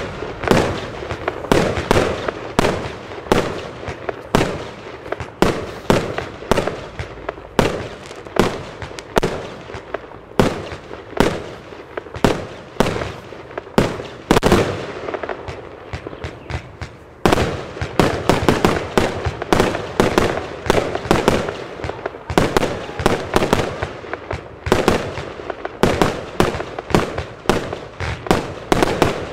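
Lesli Poisonous Panther compound firework cake firing shot after shot in quick succession, about two sharp reports a second without a break.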